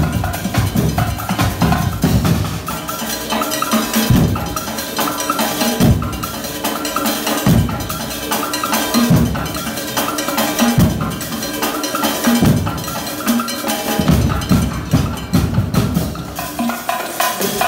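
Percussion ensemble playing congas, timbales, snare drums and large metal barrel drums: a fast, steady high ticking pattern runs throughout, over heavy low drum hits that come thick for the first few seconds and then land about every second and a half.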